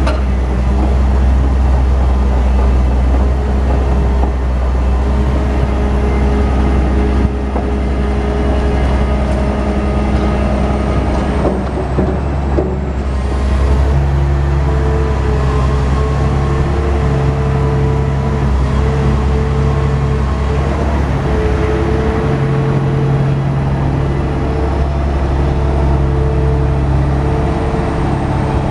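Hitachi EX1200 excavator's diesel engine running steadily under work. From about halfway, pitched hums come and go in repeated stretches over the engine note.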